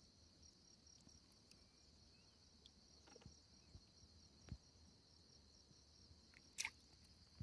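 Near silence with a faint, steady high-pitched trill of insects, pulsing slightly. A few soft knocks and rustles break in, the sharpest about six and a half seconds in.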